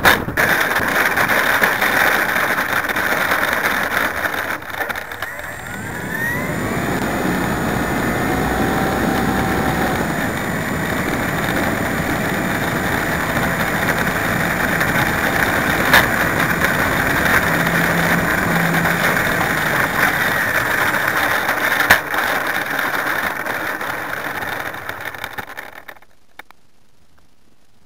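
Motor and propeller of a 1/5-scale RC Cessna 182 running as the model rolls along pavement, heard from a camera on the airframe, with the pitch rising a few seconds in and a couple of sharp knocks. The motor cuts out near the end as the plane comes to rest.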